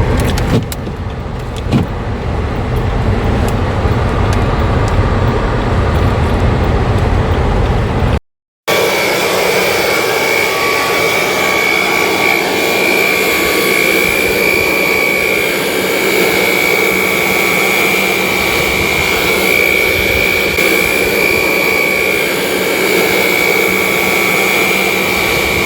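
For the first eight seconds, the low rumble of a car on the move with a few light knocks. Then, after a sudden cut, a petrol leaf blower running steadily at full throttle, a constant high whine over a rushing blast, used to blow snow.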